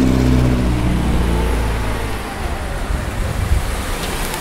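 A motor vehicle's engine running, a low steady hum that dips slightly in pitch and fades about two seconds in, giving way to a steady rushing noise like road traffic.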